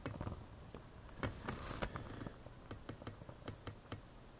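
Scrapbook pages being turned by hand: faint paper rustling with scattered small ticks, and a brief swish of a page about a second and a half in.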